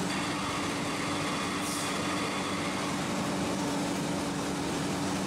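HPR CM5000 VD vertical form-fill-seal packing machine with an auger filler running steadily in production, bagging 100 g packs of Turkish coffee at 85 packs a minute: a steady machine hum over a mechanical din, with a brief hiss about two seconds in.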